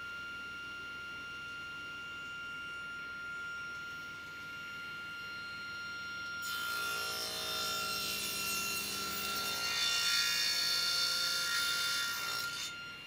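Table saw running with a steady whine. About six and a half seconds in, the blade cuts into a wooden workpiece clamped upright in a sliding tenon jig, a tenon cheek cut lasting about six seconds, then the saw runs alone again.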